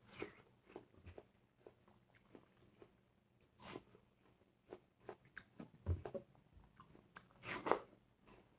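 Close-up chewing and biting of firm, crisp watermelon flesh: soft wet crunches and mouth clicks, with louder bites a little before 4 seconds in and again near the end.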